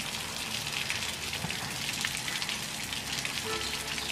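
A thick stream of water gushing from a DIY solar-powered water pump's outlet pipe and splashing down steadily.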